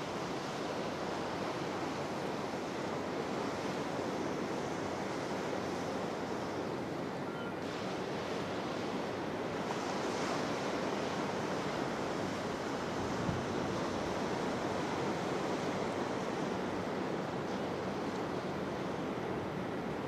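Steady wash of sea waves on the shore, with wind noise on the microphone. One brief soft thump about two-thirds of the way through.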